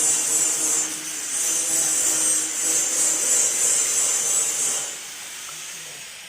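Corn emping press machine running, a steady mechanical hiss and rubbing with a low motor hum. It drops off sharply about five seconds in and then fades away.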